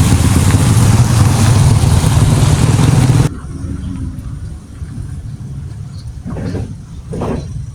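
Motor vehicle engine running with loud noise over it that cuts off suddenly about three seconds in. After that a quieter engine rumble continues, with two short swells near the end.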